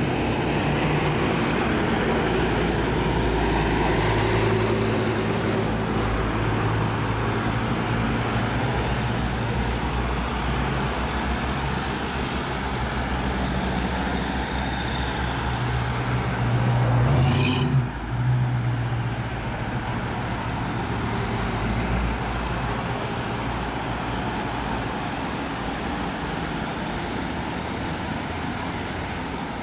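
A convoy of emergency vehicles (fire-brigade trucks, ambulances and vans) driving past one after another: diesel engines running and tyres on the road, with a steady low engine hum. The sound swells as one passes close and breaks off suddenly about two-thirds of the way in, then carries on.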